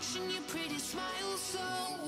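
Background music: a song with a sung melody over held accompanying tones.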